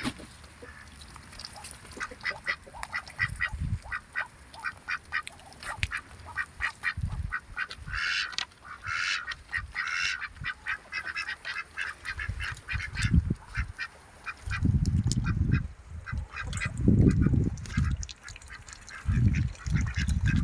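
Ducks quacking and calling in many short, rapid notes. From about halfway through, loud bursts of low rumbling come in over them.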